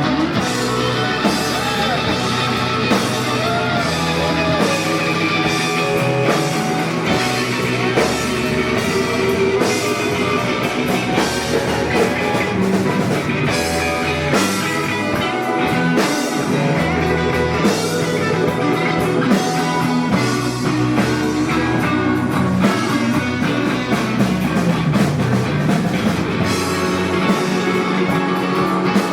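Live rock band playing an instrumental blues passage: electric guitar with bending notes over bass guitar and a drum kit.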